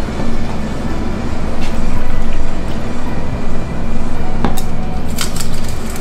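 Background music, with a run of quick metallic clicks near the end as a small wire whisk beats matcha in a stainless steel bowl.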